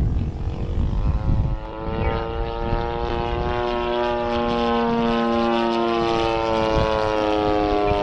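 DLE 85 twin-cylinder two-stroke petrol engine of a large radio-controlled FW-190 model flying overhead, set rich during break-in. It comes in out of wind rumble on the microphone about a second and a half in, then holds a steady drone with a slowly wavering pitch.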